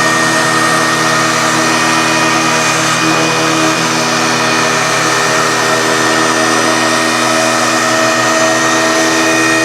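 CNC router spindle running steadily as it cuts cement-bonded particleboard (betopan): a steady machine whine with several fixed tones over the hiss of the cut.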